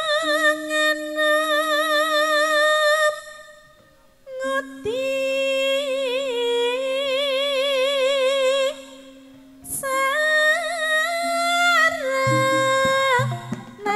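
A Javanese sindhen (female gamelan singer) sings solo through a microphone in three long, slow phrases, holding notes with a wide wavering vibrato over a steady low tone. Low instrument notes join near the end.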